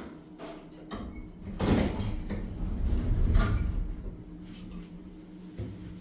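Elevator's glass sliding doors opening, with a low rumble from the door mechanism lasting about two seconds, over a steady low hum.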